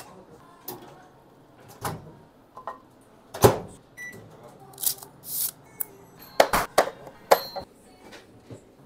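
Handling sounds of instant cup noodles being prepared: a run of sharp clicks, knocks and packaging rustles, the loudest a single knock about three and a half seconds in. A short beep, likely from the microwave's keypad being pressed, comes about four seconds in.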